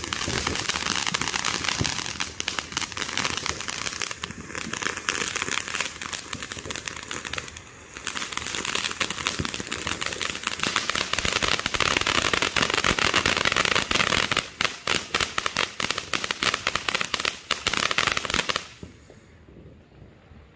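Ground fountain firework spraying sparks with a loud, dense crackling hiss that starts suddenly, dips briefly twice, and then cuts out about two seconds before the end, leaving only a faint hiss.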